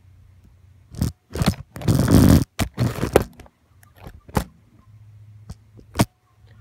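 Handling noise from a phone being moved and propped up against a makeshift stand: a string of knocks and scrapes on the microphone, the longest and loudest a scrape about two seconds in.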